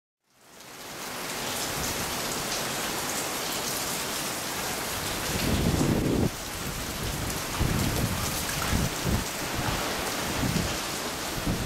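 Rain pouring down in a spring storm, a steady hiss that fades in over the first second. From about halfway, gusts of wind buffet the microphone with low rumbles.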